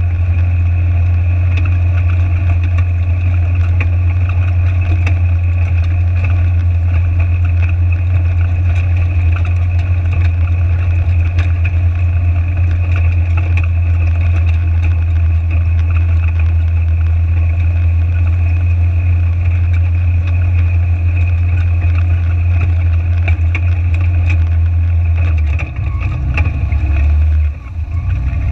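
Side-by-side UTV engine running at a steady low drone as the vehicle drives across gravel. Near the end the note breaks up and shifts as the vehicle drives into the flooded creek.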